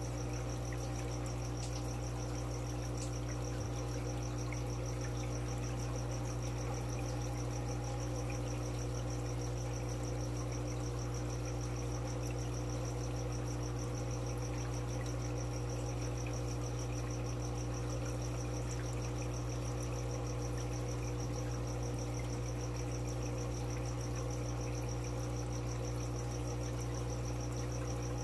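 Steady electrical hum of running aquarium equipment, with a high, fast-pulsing tone over it.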